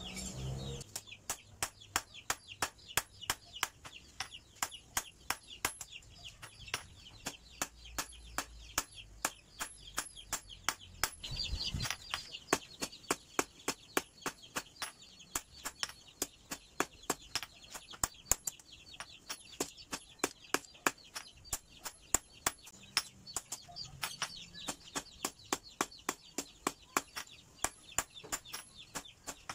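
Hand hammer striking a red-hot steel knife blade on a steel anvil block in steady, even blows, about three a second, starting about a second in. This is the hot forging of the blade.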